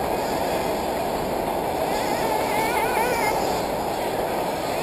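Several 1/8-scale nitro RC buggy engines buzzing together in a dense, steady drone, with one engine's pitch wavering rapidly up and down as it is throttled about halfway through.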